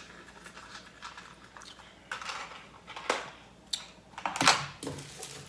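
Scattered clicks, taps and rustles close to the microphone, the loudest cluster about four and a half seconds in.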